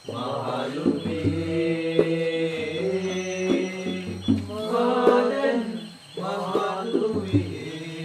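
Background music: a chanting voice holds long notes in phrases, with a short break about six seconds in.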